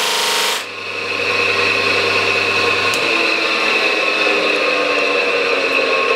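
Bench grinder running with a steady whine while steel is held against its abrasive wheel. There is heavy grinding for about the first half-second, then lighter grinding as the part is worked across the wheel.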